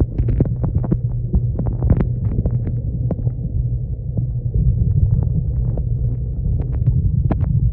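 Muffled low hum and throb of reef tank water, heard through an iPhone microphone held underwater, with frequent small clicks and ticks on top.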